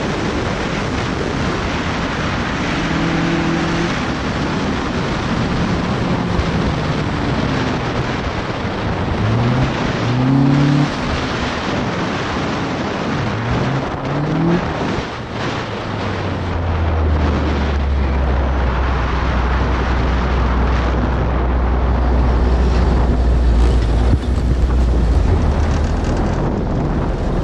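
Ariel Atom's engine revving up and down under heavy wind rush in the open cockpit, with the pitch rising and falling through gear changes. About two-thirds of the way in it settles to a steady low drone as the car eases off.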